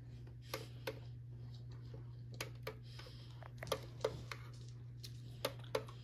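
Faint clicks in pairs, about five times, over a steady low hum: buttons being pressed on a small electronic device.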